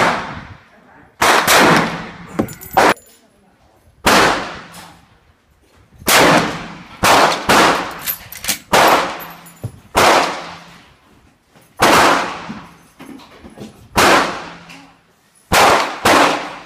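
Rifle shots fired on a covered shooting range, about fifteen at irregular spacing with some in quick pairs. Each shot trails off in a long echo.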